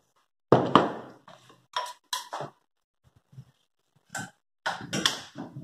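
A spoon scraping and knocking against a plastic food-processor bowl and a stainless steel mixing bowl as ground chicken paste is scooped across. There are a series of separate clinks and scrapes, a few of them ringing briefly.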